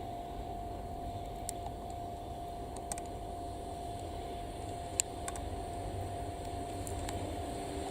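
Low rumble and hiss of a train still some way off, slowly getting louder toward the end, with a thin steady tone over it and a few light clicks.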